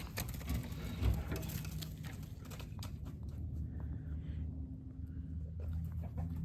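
Hoofbeats pattering on icy, snowy ground, in scattered steps during the first second and again near the end, with a quieter stretch between.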